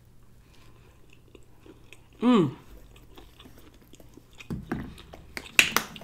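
Close-up chewing of a cheeseburger slider, with faint wet mouth clicks and smacks. About two seconds in comes a loud hummed "mmm" that falls in pitch.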